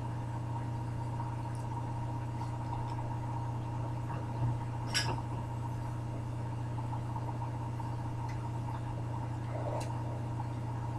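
Steady electrical hum and hiss from a webcam microphone, with a few faint clicks and rustles about halfway through and again near the end.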